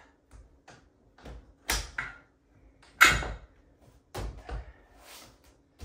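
Adjustable workout bench being reset, with a few sharp metal-and-padding clunks as its parts are moved and locked. The loudest comes about three seconds in, with softer clicks between them.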